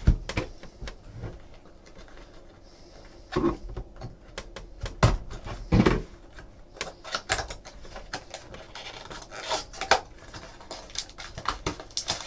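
Hands handling and opening a cardboard trading-card box: an irregular run of rubbing, scraping and crackling clicks as the box and its wrapping are worked open, sparse at first and busier in the second half.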